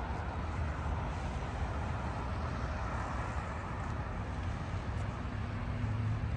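Steady hum of city traffic, with a low hum growing louder near the end.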